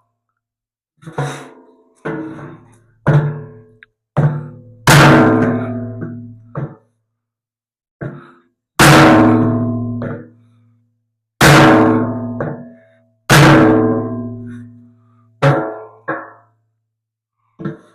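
Hammer blows on steel, about a dozen irregular strikes. Each rings out with the same metallic tone and fades over a second or two, as the bolt-on grab-hook plate is driven into place on the tractor's loader bucket.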